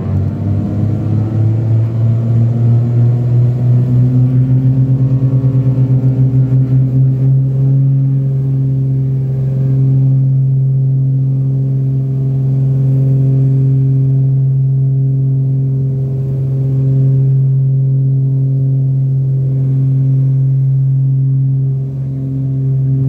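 Cessna 414A Chancellor's twin turbocharged piston engines and propellers, heard inside the cabin, coming up to takeoff power. The drone rises in pitch over the first few seconds, pulses quickly for a few seconds, then holds steady and loud through the takeoff roll.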